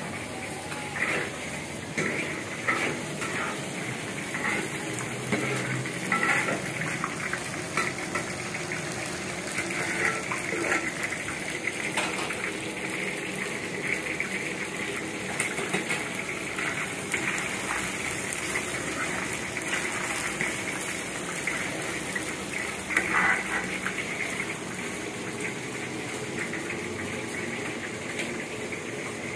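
Kitchen noise: a steady rushing hiss with scattered clinks and knocks of metal pots and dishes.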